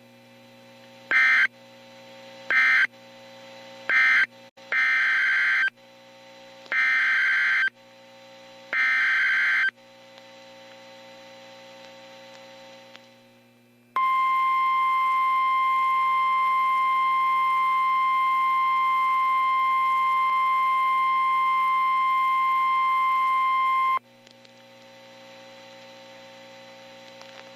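Emergency Alert System broadcast over NOAA Weather Radio. First come three short warbling digital data bursts, the SAME end-of-message code that closes the previous warning. Then come three longer SAME header bursts announcing the next tornado warning, and after a few seconds of receiver hiss the steady 1050 Hz warning alarm tone sounds for about ten seconds, followed by hiss with a low hum.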